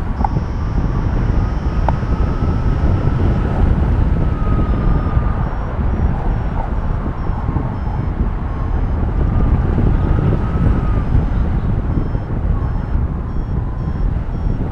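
Wind rushing over the microphone of a paraglider in flight, loud and steady. From about five seconds in, faint high-pitched variometer beeps repeat at shifting pitches, signalling lift in a thermal.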